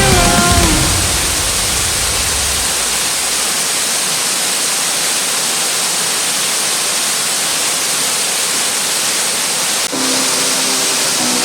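Steady, even rush of a waterfall. A song fades out at the start, and faint music returns near the end.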